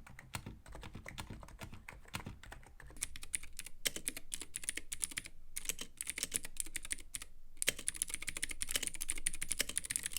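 Rapid, steady typing on a computer keyboard, a stream of key clicks. About three seconds in the clicks turn brighter and sharper, as if another keyboard takes over, and there is a brief pause about seven seconds in.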